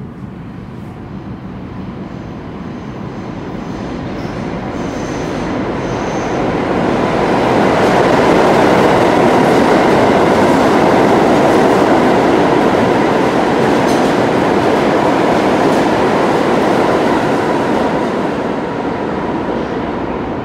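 Kawasaki R142A subway train running through the station without stopping: the rumble of its wheels on the rails builds, stays loud midway and then fades away.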